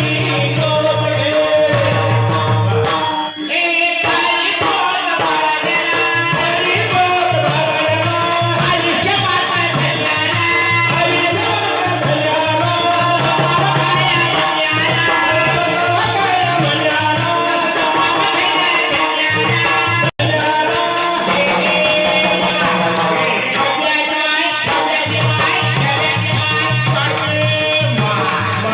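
Marathi bharud: a singer's voice carried over continuous music with jingling, rattling percussion. The sound drops out for an instant about two-thirds of the way through.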